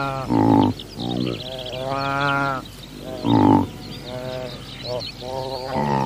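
A group of antelope calling: short pitched calls follow one another about every second, several overlapping, with two louder calls about half a second and three and a half seconds in. Faint high chirps run underneath.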